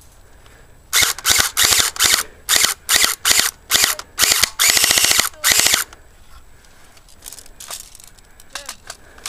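Airsoft M4 rifle firing in quick short bursts, each a fast rattle of shots, about a dozen bursts over some five seconds, the last one lasting about a second.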